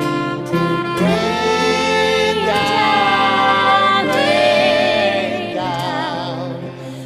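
Tenor saxophone playing a slow melody over acoustic guitar accompaniment, sliding up about a second in and then holding long notes with a wide vibrato.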